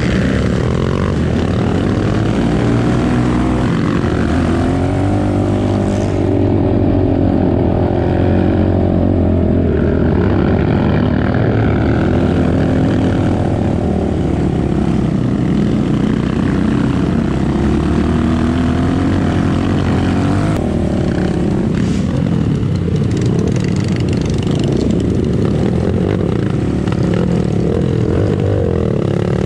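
Off-road dirt bike engine running under way, its pitch rising and falling with the throttle as it is ridden along a trail.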